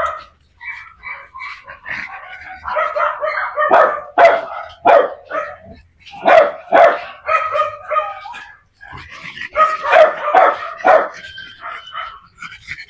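Several small young dogs barking and yipping over and over as they chase and wrestle in rough play.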